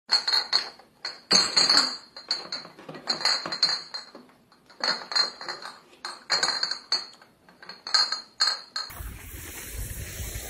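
Metal clinking and rattling in a series of short bursts with brief silences between them. About nine seconds in, it gives way to steady wind noise on the microphone.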